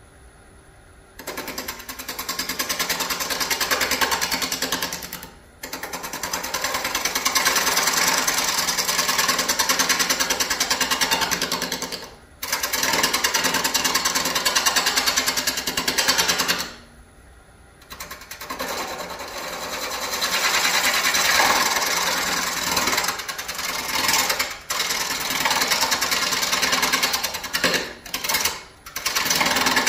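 Gouge cutting a Nargusta wood scoop blank mounted off-centre on a spinning wood lathe: an interrupted cut, with a fast, steady rattling chatter as the edge meets the off-centre wood. It starts about a second in and comes in several passes, broken by short gaps where the tool comes off the wood.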